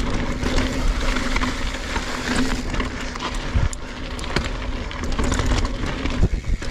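NS Bikes Synonym mountain bike riding fast down rocky singletrack: a steady rush of tyre noise over dirt and rocks, with frequent knocks and rattles from the bike over bumps and a sharper knock about six seconds in.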